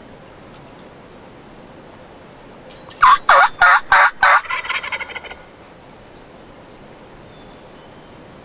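Wild turkey gobbler gobbling once, about three seconds in. The call starts with four loud, quick notes and trails off into a faster, fading rattle, lasting about two seconds.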